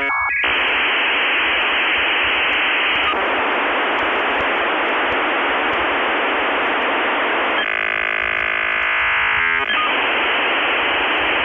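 Dial-up modem connecting over a telephone line: a steady hiss of data, broken by a stretch of buzzing tone about eight seconds in, then hiss again.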